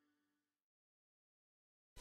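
Near silence: the faint tail of background music fades out into dead silence, and louder music cuts in suddenly at the very end.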